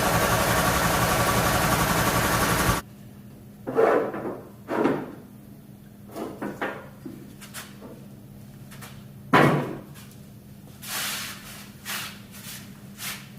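A motor-driven machine running steadily and loudly for nearly three seconds, then cut off abruptly. After it come several separate knocks and clunks of metal or wood being handled, loudest about four, five and nine seconds in, over a faint low hum.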